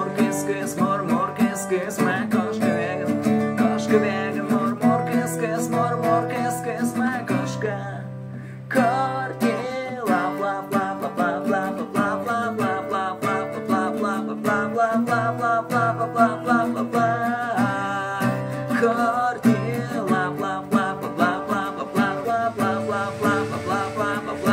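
Acoustic guitar strummed steadily, with a man singing along over it. The playing breaks off for a moment about eight seconds in, then picks up again.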